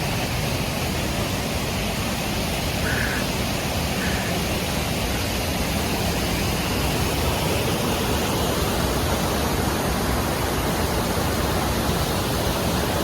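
Steady rushing of a waterfall, an even wash of water noise with no change, with two faint short high notes about three and four seconds in.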